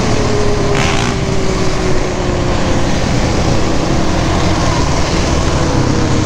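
Sport quad's single-cylinder engine running at a steady cruise, its note sinking slowly, under wind rush on the microphone. A brief hiss comes about a second in.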